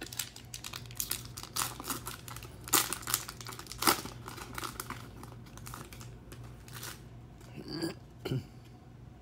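Foil trading-card pack wrapper being torn open and crinkled by hand: a run of sharp crackles and rips, the loudest about three and four seconds in, easing to quieter handling near the end.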